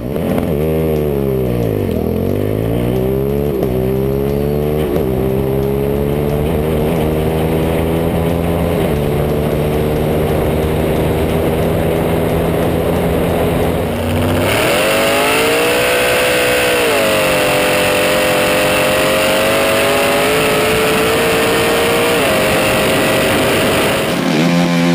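Engine of the Postman Pat van drag racer running hard. Its pitch dips and then climbs with a few small jumps before holding steady at high revs. About two-thirds through, the sound cuts to another stretch with the engine held at a higher steady pitch.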